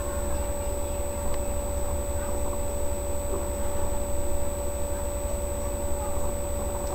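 Steady low rumble with a constant high-pitched electrical whine over it. No distinct event stands out.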